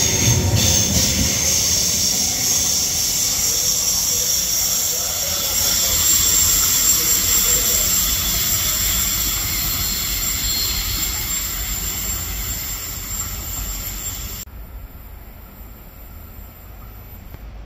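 Trenitalia ETR521 'Rock' double-deck electric regional train pulling out of the station: a steady high hiss and hum of its traction equipment and wheels on the rails, fading as it moves away. The sound drops abruptly near the end.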